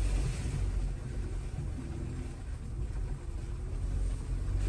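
Off-road vehicle engine running at low speed over a muddy trail, a steady low rumble with a brief hiss at the start.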